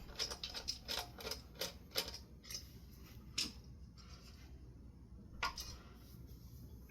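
Light clicks and taps of small ceiling fan parts being handled: a quick run of clicks in the first two seconds or so, then a few single clicks, over a low steady hum.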